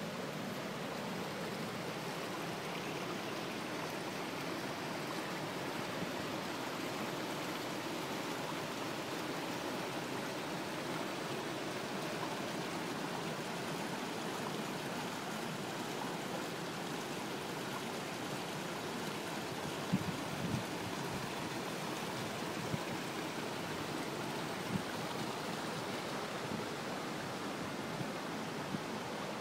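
Steady rush of flowing river water. In the second half there are a few brief low thumps on the microphone.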